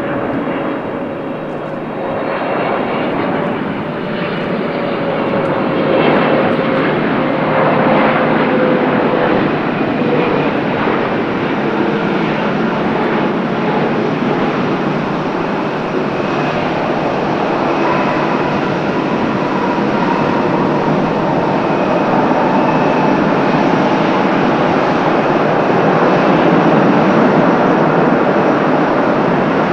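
Boeing 777F freighter's twin GE90 jet engines as the aircraft comes in to land: a loud, steady rumble with a whine that slides slowly down in pitch as it passes. The rumble grows louder over the first few seconds.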